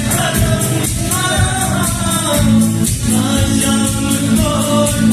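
Live band playing a Hindi song: sung vocal lines held and bending over a steady beat of about four ticks a second.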